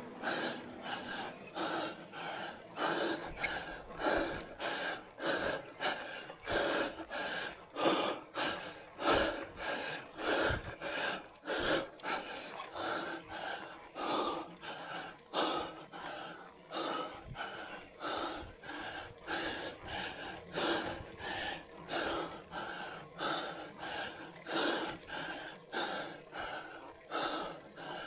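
A cyclist panting hard in a fast, even rhythm of about two breaths a second, labouring on a steep road climb of around 10% gradient.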